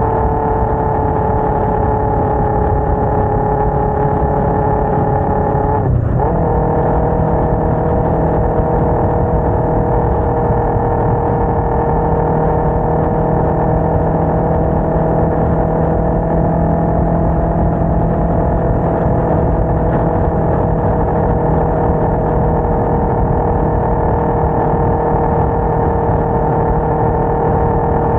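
Sport motorcycle engine running at a steady cruising note with wind rush. About six seconds in the engine note breaks briefly and picks up again at a different pitch.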